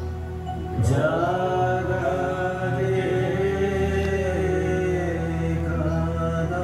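Devotional chanting of a Sanskrit hymn, the sung line gliding in pitch over a steady low drone. A voice comes in more strongly about a second in.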